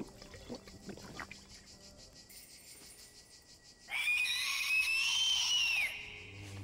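An owl's screech: one harsh, loud cry of about two seconds, starting about four seconds in, rising slightly in pitch and dropping away as it ends. A few faint knocks come before it.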